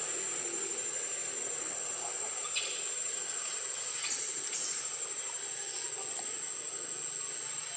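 Insects droning in one steady, high-pitched tone over a background hiss, with a few faint clicks about two and a half and four and a half seconds in.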